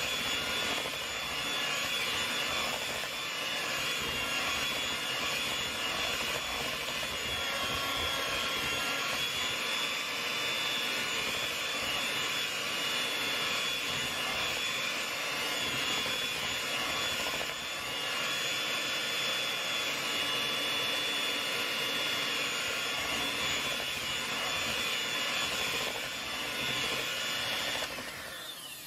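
Electric hand mixer running steadily, its twin beaters whipping through mashed sweet potato in a bowl. The motor's whine winds down and stops right at the end.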